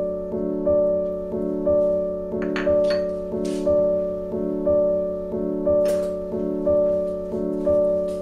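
Background music with steady sustained tones, a note or chord struck about once a second and then fading.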